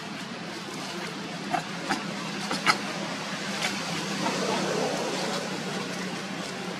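Steady outdoor background noise with a low hum, broken by a handful of short, sharp clicks or squeaks in the middle, the loudest a little under three seconds in.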